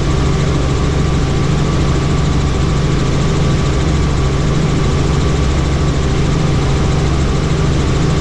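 Helicopter in flight: a steady, loud drone of the engine and rotor, unchanging throughout.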